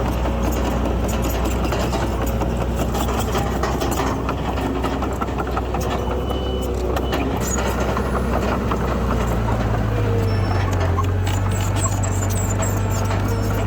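Heavy diesel earthmoving machinery running steadily, with a deeper, stronger engine note coming in about nine seconds in.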